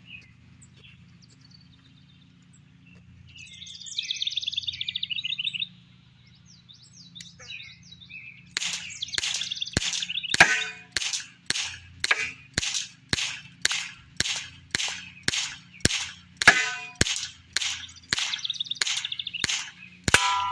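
Umarex Legends P.08 CO2 BB pistol firing a long run of about twenty shots, about two a second, starting about eight seconds in. Birds chirp in the first few seconds.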